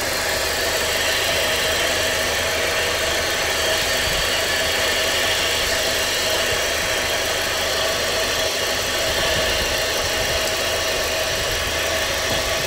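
Volkswagen 1.8T turbocharged four-cylinder engine idling steadily while still cold, heard close up in the open engine bay.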